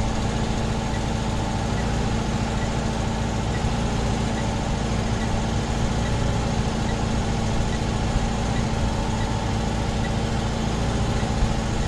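Steady mechanical hum from a running machine, with faint regular ticks about three times a second.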